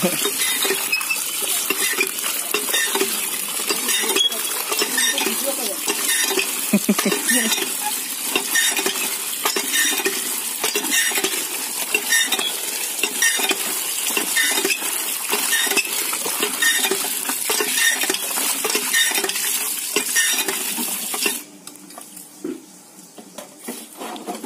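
Water pouring and splashing into a plastic crate packed with live catfish and climbing perch, the wet fish flapping and slithering against each other and the crate in a steady crackling splash. It cuts off suddenly near the end.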